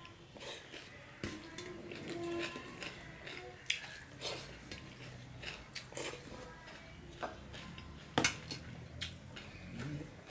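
Fingers mixing and gathering rice on a stainless steel plate, with scattered small clicks and clinks against the metal, the sharpest a little after eight seconds in, alongside mouth sounds of eating by hand.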